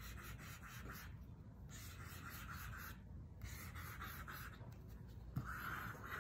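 A fine-liner pen tip scratching across Duralar drawing film in several short strokes, with a sharp click near the end.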